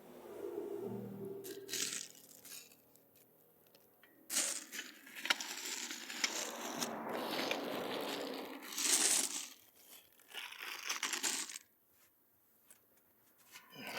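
Irregular crinkling and rustling handling noises with occasional small clicks and clinks, coming and going in uneven stretches.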